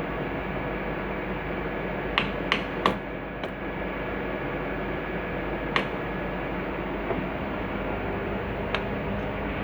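Faulty car starter clicking without cranking the engine: three sharp clicks in quick succession about two seconds in, then single clicks a few seconds apart, over a steady hum.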